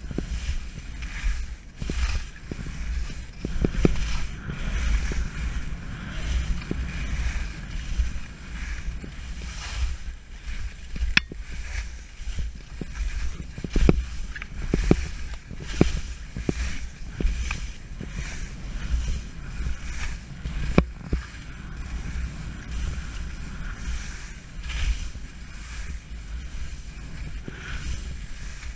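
Skis scraping and chattering over firm, bumpy snow on a fast descent, with wind buffeting the camera's microphone and a few sharp knocks as the skis hit bumps.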